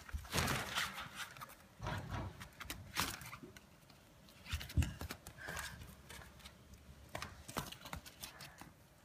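Cat scrambling and batting a toy inside a nylon play tunnel: scattered rustles and scratches of paws on the fabric, with a few soft thumps.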